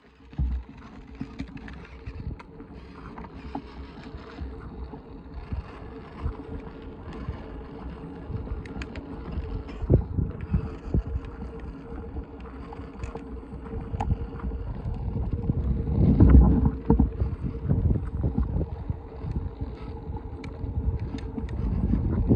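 Battery-powered ride-on toy motorcycle moving along a concrete sidewalk: a steady electric motor hum with its plastic wheels rumbling and knocking over the pavement, starting about half a second in.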